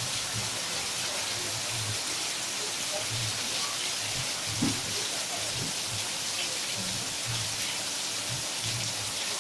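Steady monsoon rain falling, an even hiss, with one brief louder tap about halfway through.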